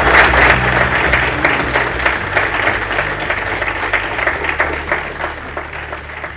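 Wedding guests applauding; the clapping thins out and fades away toward the end.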